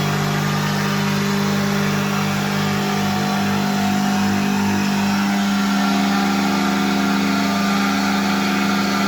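CNC pipe-milling machine running with a steady hum of several held tones over a hiss, with a brief pulsing low throb from about three to five seconds in.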